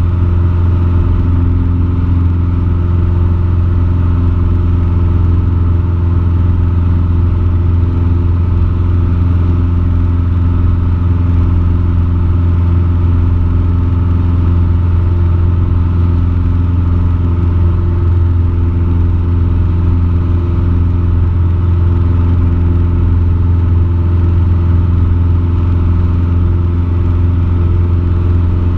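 Light aircraft's piston engine and propeller droning steadily inside the cockpit during the climb after takeoff, with a deep, even hum and no change in power.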